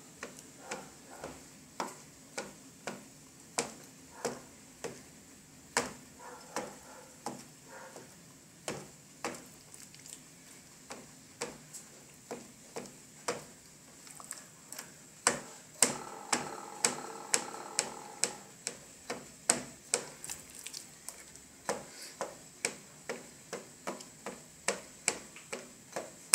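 Knife point stabbed again and again through raw chicken breast fillets into a plastic cutting board, making sharp taps about twice a second at an uneven pace.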